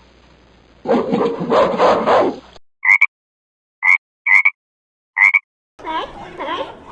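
A string of separate animal calls spliced together: a rough, noisy call lasting about a second and a half, then four brief high-pitched calls with dead silence between them, then a wavering call near the end.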